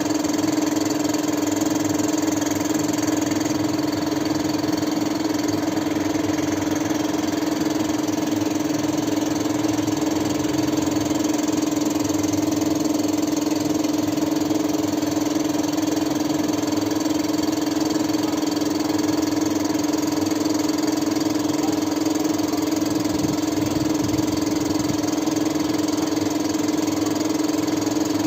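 A motor running at one steady, unchanging hum, with no rise or fall in pitch or loudness.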